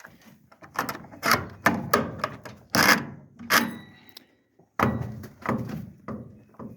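A chicken coop's wooden door and its latch being worked by hand: a string of wooden knocks, rattles and scrapes.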